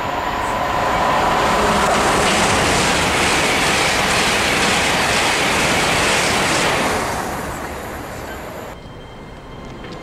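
Great Western Railway Hitachi Intercity Express Train passing: a rush of wheel and rail noise that builds over the first couple of seconds, holds for about five seconds, then fades as the train draws away. The sound drops away abruptly about nine seconds in.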